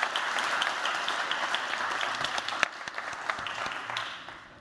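Audience applauding. The clapping thins out and fades away over the last couple of seconds.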